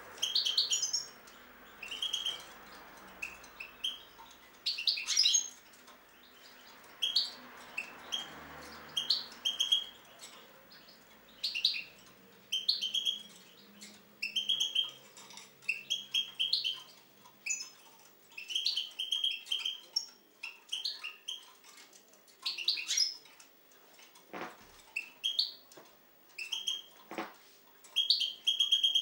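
European goldfinch singing: bursts of bright, twittering chirps repeat about once a second throughout, with a couple of faint clicks near the end.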